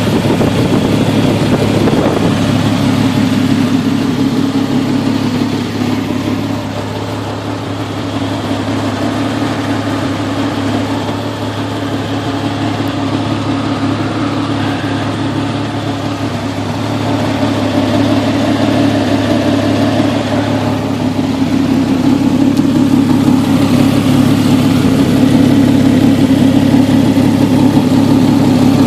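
Jeep Cherokee XJ's 4.0 straight-six engine running at idle. It drops a little quieter partway through and then comes back up to a steady level. The owner reports the engine is misfiring.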